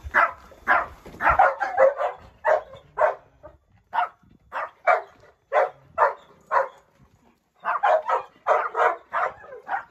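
A dog barking repeatedly in short, loud barks, about two a second, with a brief pause near the end before a quicker run of barks.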